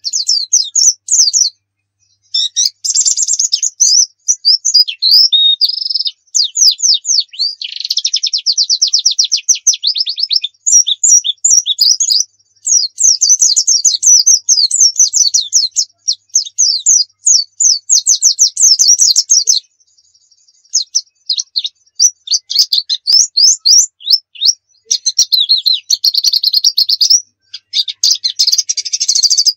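Pleci dakun white-eye singing a long, fast, rapid-fire song packed with varied high twittering trills and chattering runs. Short breaks come about two seconds in, around twenty seconds in and just before the end.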